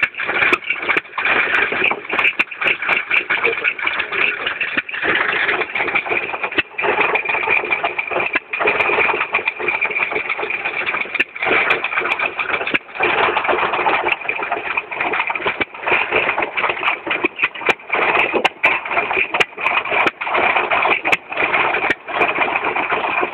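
Small hit-and-miss gas engine being started and run, a steady mechanical clatter broken by irregular sharp clicks.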